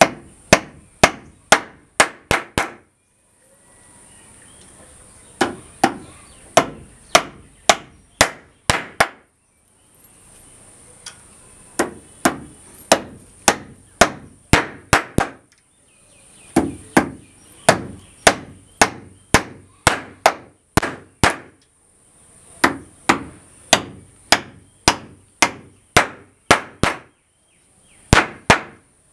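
Hammer striking the screws of a steel butt hinge into a wooden door frame: sharp blows about two a second, in runs of six to eight with short pauses between the runs.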